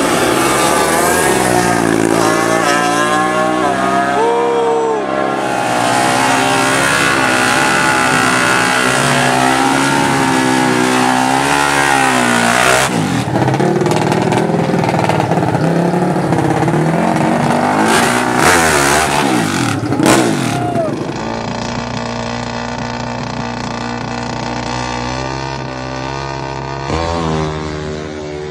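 Drag-racing ATV and motorcycle engines revving hard, several at once, their pitch repeatedly climbing and dropping. About three-quarters of the way in the sound turns quieter and steadier.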